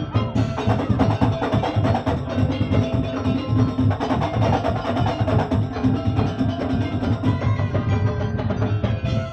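Madurese daul (tong-tong) percussion ensemble playing: a dense, fast rhythm of wooden slit drums and drums with a melody carried over it.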